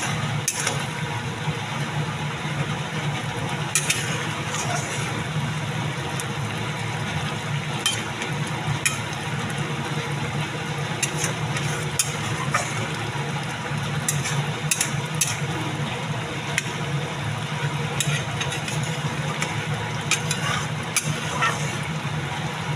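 A metal spatula stirring a simmering gravy in an iron kadai, with scattered clicks and scrapes against the pan. Underneath runs a steady low hum.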